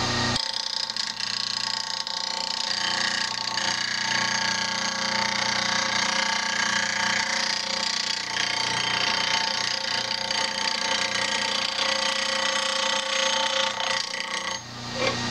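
Rikon 8-inch bench grinder grinding the steel edge of a round nose scraper: a steady, harsh grinding with a high ringing whine. It starts about half a second in and stops shortly before the end, as the tool comes off the wheel.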